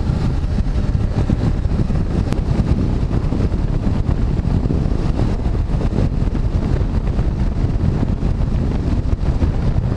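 Wind rushing over the microphone over the steady running of a BMW F 850 GS's parallel-twin engine while riding, an even rumbling noise with no change in pace.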